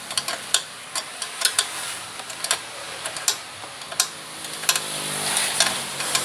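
Irregular sharp clicks and taps from hand work on a motor scooter, with a faint low hum coming in near the end.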